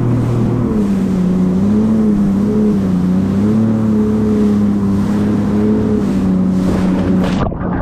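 Jet ski engine running at speed, its pitch rising about a second in and then holding with small wavers, under a hiss of wind and water. Near the end the hiss cuts off abruptly while the engine keeps running.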